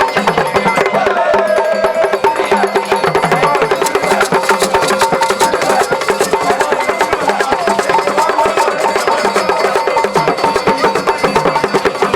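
Music led by percussion: a rapid, steady beat of wood-block-like clicks and drums, with a wavering melody above it.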